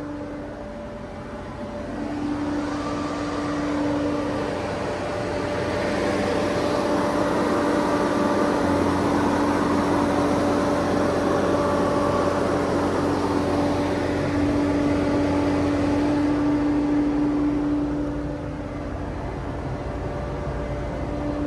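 Ravo 340 street sweeper's engine running steadily at idle, with a steady whine over a low hum. It grows louder about two seconds in and eases back near the end.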